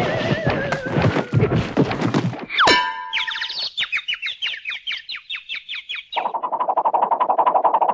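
A string of cartoon sound effects. A horse whinnies over hoofbeats, then a spring boings about two and a half seconds in, followed by a run of quick boinging twangs. From about six seconds comes a fast, steady, buzzing croak.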